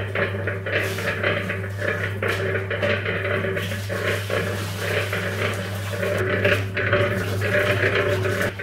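Small electric cement mixer running: a steady motor hum with the steel drum rattling and clanking as it turns, while water is poured into the drum from a watering can.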